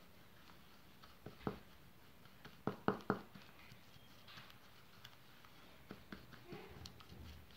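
Small spatula stirring a thick bleach cream in a plastic bowl, scraping and tapping against the bowl's side. Three sharp taps come in quick succession about three seconds in, with a few fainter clicks before and after.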